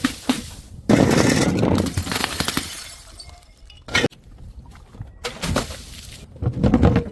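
A glass bottle smashing on stairs: a sudden crash about a second in, trailing off as the shards scatter. A single sharp knock comes near the middle, and another loud crash follows near the end.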